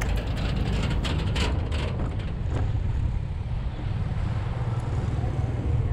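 A motorbike ride with steady low engine and wind rumble on the microphone. For the first two or three seconds the wheels clatter over the suspension bridge's steel deck plates, then the ride smooths out on asphalt.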